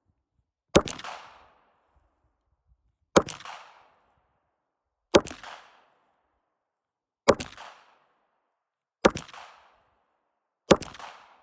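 Six 9mm pistol shots from a Glock 45, fired slowly and evenly about two seconds apart, each with a short echoing tail.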